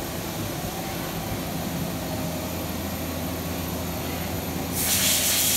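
Steady running hum of a CNC vertical turning center with a few steady low tones, then, near the end, a louder hiss of flood coolant spraying inside the machine enclosure.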